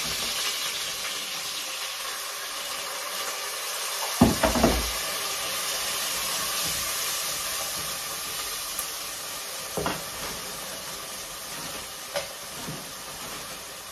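Onion and carrot frying in a pan, a steady sizzle, with a few knocks and clatters from utensils or food going in. The loudest knock, with a low thud, comes about four seconds in.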